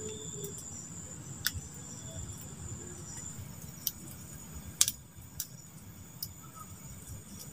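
Wood campfire crackling with a handful of sharp pops, the loudest a little before the middle, over a steady high insect trill.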